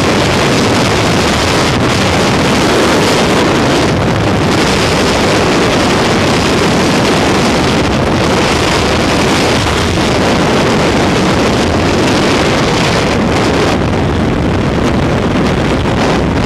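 Loud, steady wind rush of skydiving freefall buffeting a helmet-mounted camera's microphone.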